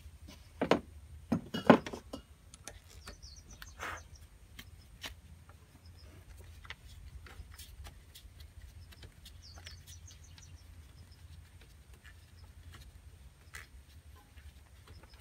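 Hand work on a Honda Dio scooter's carburetor: a few sharp knocks of metal parts and tools in the first two seconds, then light scattered clicks and ticks. A bird chirps faintly a couple of times.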